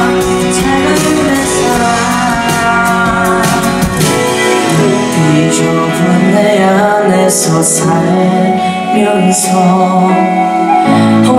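Male singer performing a song live into a handheld microphone, with instrumental backing.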